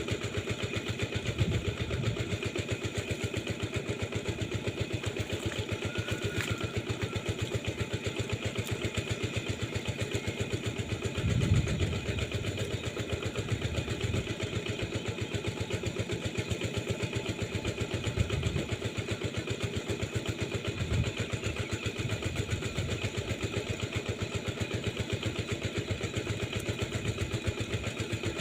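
A small engine running steadily with a fast, even pulse, and a few louder low thumps about eleven and eighteen seconds in.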